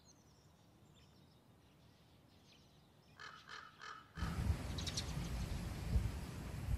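A bird gives three short, harsh calls in quick succession about three seconds in. After about four seconds, wind buffets the microphone with a low, gusty rumble, which is the loudest sound here.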